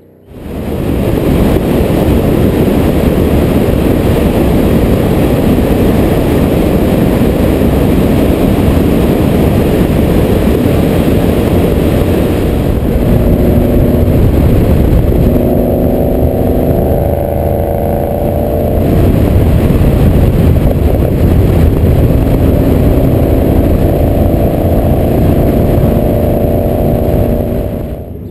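The 5.0 V8 of a 2013 Ford Mustang GT with a Roush exhaust, running loud under acceleration, heard close from a camera mounted on the car. In the second half the engine note climbs in pitch several times, as the car pulls up through the revs.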